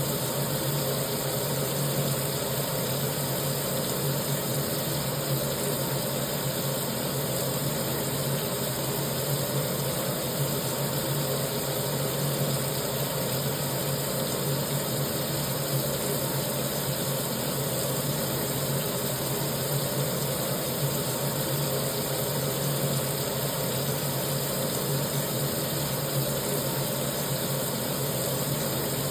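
Tap water running steadily into a kitchen sink, an even, unbroken rushing with a constant low drone underneath.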